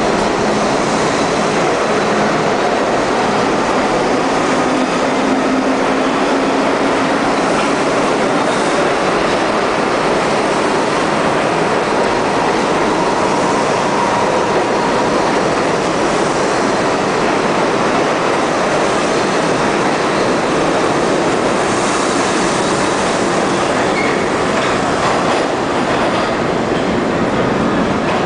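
New York City Subway R-32 cars running past a station platform: a steady, loud rumble and clatter of steel wheels on rail, with a few brief faint squeals.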